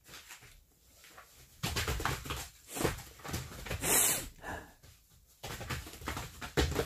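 Two dogs scuffling at play on a plastic tarp floor: the tarp rustles and crinkles in irregular bursts under their paws, loudest about four seconds in, with the dogs' breathing and snuffling.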